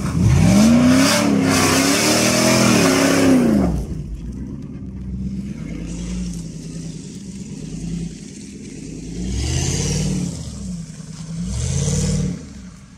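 Jeep Grand Cherokee ZJ's 5.2 V8 revving hard through mud, its pitch rising and falling several times over a loud hiss of spinning tyres and spraying mud and water. After about four seconds it runs quieter, with two shorter revs near the end.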